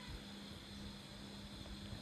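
Faint steady hum over low background noise.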